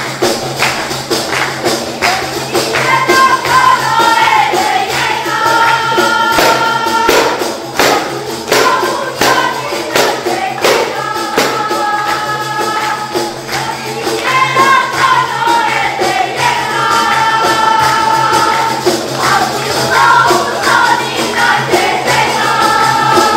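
Group of voices singing an Albanian folk wedding song together over hand-held frame drums (def) beaten in a steady, driving rhythm; the singing comes in about three seconds in.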